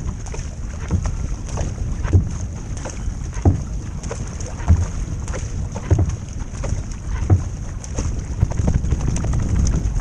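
Surfski being paddled hard: the blade of a wing paddle splashes in on each stroke, with a low thump about every second and a quarter, over water rushing along the hull and wind on the microphone.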